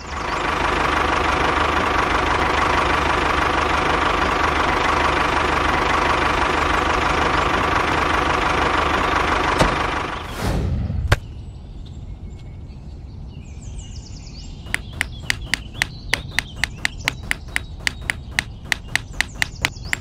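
The small electric motor of a DIY model tractor running steadily for about ten seconds, then stopping after a short whoosh. Faint chirping follows, and near the end a fast run of evenly spaced clicks, about four a second.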